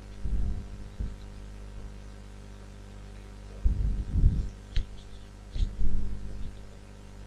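Pen stylus knocking and clicking on a writing tablet while handwriting, heard as a few dull low thumps and a couple of light clicks over a steady low electrical hum.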